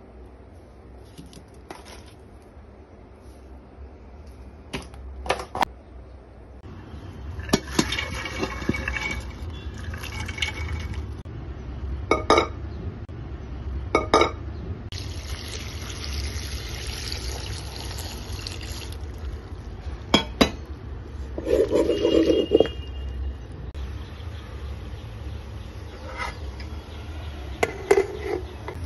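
Water poured into a steel pot of chopped vegetables for about four seconds, halfway through. Metal clinks and knocks of pots and utensils come before and after it, over a low steady hum.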